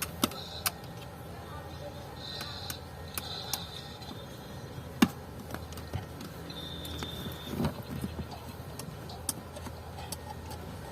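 Scattered sharp metallic clicks and taps of tools and parts being handled, the loudest about halfway through, with a duller knock a little later. A steady low hum runs underneath, and a few short high squeaks come between the clicks.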